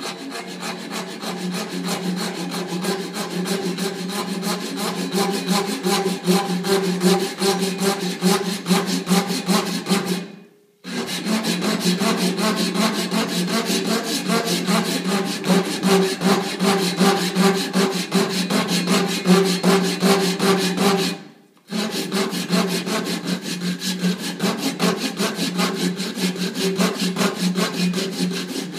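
Japanese pull saw's fine-tooth edge ripping lengthwise down a wooden dowel in rapid, even strokes, over a steady low hum. The sound cuts off sharply twice, for about half a second each time, about a third and two thirds of the way through.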